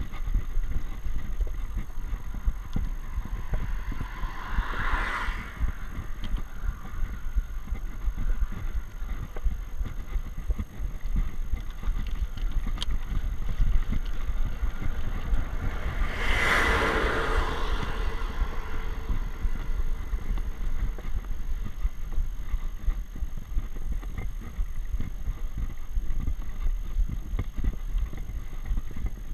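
Wind rumble on a GoPro's microphone while riding a bicycle up a road climb, with a vehicle passing about five seconds in and a second, louder one passing around the middle, its pitch falling as it goes by.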